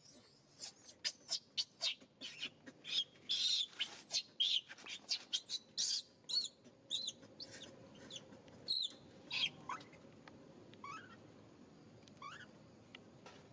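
A baby pigtail macaque cries in distress: a rapid string of short, high-pitched squeals, each arching up and down, that thins out after about nine seconds into a few fainter rising chirps.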